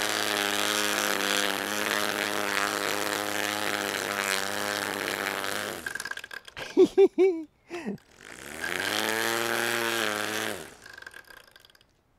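Electric motor of a PowerSmart 40-volt cordless string trimmer running as an edger, spinning its line at a steady speed while it cuts along the lawn edge. It winds down with falling pitch about six seconds in, gives a few short loud blips, spins up again near eight and a half seconds, and winds down again shortly before the end.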